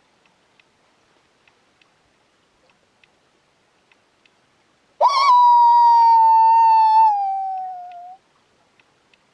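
A loud, close howl imitating a wild dog, made to call one in. It starts about five seconds in with a quick rise, holds one steady pitch for about two seconds, then slides down and stops about three seconds after it began. Faint ticks come before it.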